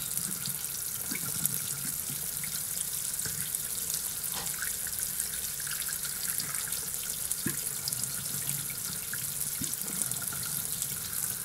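Steady running water, like a tap running.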